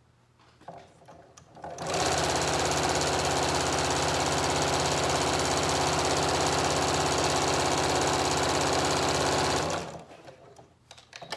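Janome electric sewing machine stitching double-fold bias tape onto a fabric cuff, running at one steady speed for about eight seconds. It starts about two seconds in and stops shortly before the end, with faint fabric handling before and after.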